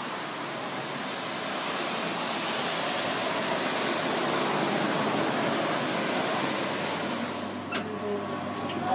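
Hiss of traffic on a wet road, swelling over a few seconds and then fading, with a couple of sharp clicks near the end.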